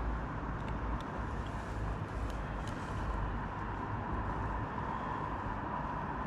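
Steady outdoor background noise, a low even rush with a faint steady hum that strengthens slightly toward the end, and a few light ticks.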